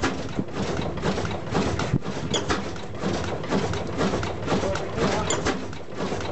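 A 1907 12hp Blackstone kerosene oil engine running, its slow working sounding as a run of irregular knocks and clicks over a low mechanical rumble.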